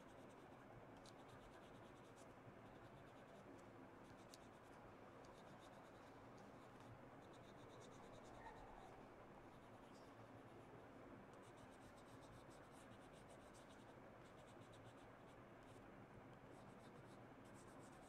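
Faint scratching of a blue oil pastel rubbed back and forth on drawing paper while colouring in, in runs of quick strokes with short pauses.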